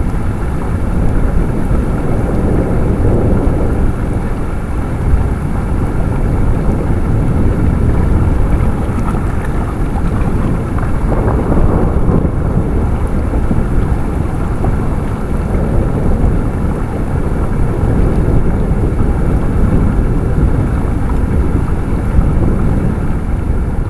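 Flash floodwater rushing past a trail camera: a loud, steady rushing noise with a deep rumble underneath.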